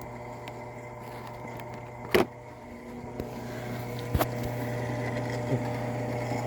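Drill press motor running steadily, spinning a quad-pin roll crimp tool, with two sharp clicks; the running grows louder about three to four seconds in.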